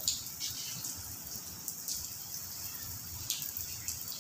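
Heavy rain falling on a flat concrete surface: a steady hiss with a few sharper splashes and drips standing out from it.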